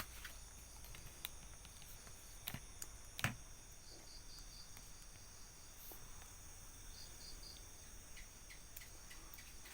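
Night insects: a steady high-pitched drone with a cricket chirping in short groups of three or four. A few sharp clicks stand out, the loudest about three seconds in.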